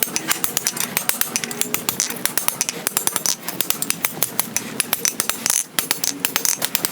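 Quick run of hand-hammer strikes on hot 1/4 x 1 inch steel bar at the anvil, about six blows a second. The end is being rolled into a hinge barrel.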